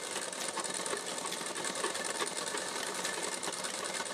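Sewing machine stitching lace onto cotton fabric, running steadily at speed with a fast, even needle rhythm.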